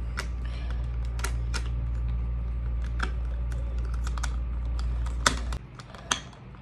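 Scattered plastic clicks and taps as the parts of a toy Poké Ball are handled and snapped together, over a steady low hum that cuts off suddenly about five and a half seconds in.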